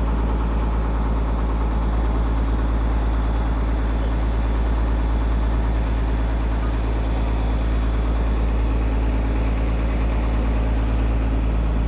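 Boat engine running steadily, a constant deep hum with an even rushing noise over it.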